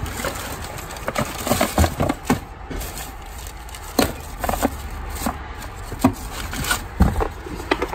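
Old wooden cigar box being handled and rummaged through: irregular knocks and clicks of wood and small loose parts, with rustling of a plastic bag and packing paper; the sharpest knock comes about halfway through.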